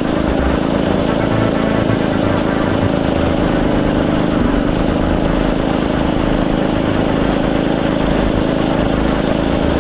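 Predator 212cc single-cylinder four-stroke engine on a motorized bicycle running steadily under load at cruising speed.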